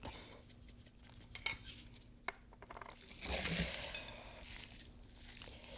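Light clicks and clinks of kitchen utensils against a mixing bowl while a seasoned ground beef mixture is prepared. A quick run of fine clicks comes first, then a short scraping, rustling patch about three seconds in.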